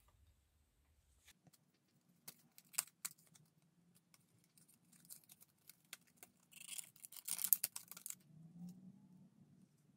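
Hands handling a fountain pen's packaging: light clicks and taps about two to three seconds in, then a burst of crinkly packaging rustle about seven to eight seconds in as a paper sleeve is handled.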